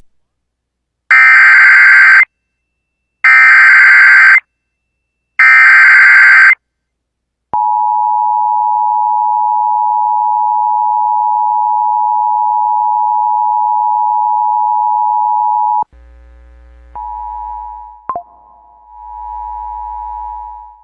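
Emergency Alert System broadcast. It opens with three identical SAME header data bursts, each about a second long with a second of silence between them. After a pause comes the two-tone EAS attention signal (853 and 960 Hz), held steadily for about eight seconds. The attention signal cuts off and a quieter steady tone with brief breaks over a low hum follows.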